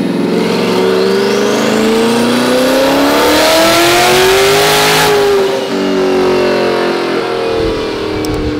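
Twin-turbo C8 Corvette's V8 making a full-throttle pull on a chassis dyno. The engine note climbs steadily in pitch for about five seconds with a rising turbo whistle above it. The throttle then closes and the engine drops back to a lower, steady run as the rollers spin down.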